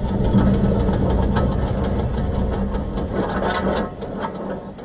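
Dodge Charger's worn wheel bearing with the wheel turning: a rapid, even clicking, about seven or eight a second, that slows and fades near the end, over the steady hum of the running engine. The sound of a badly worn wheel bearing.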